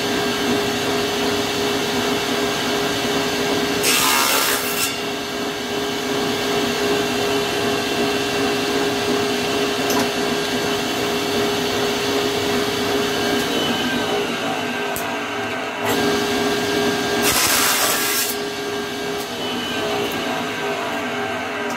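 Table saw running with a steady hum, its blade cutting through wood twice in loud bursts of about a second each, once about four seconds in and again about two-thirds of the way through. It is ripping thin 5 mm strips of caixeta wood.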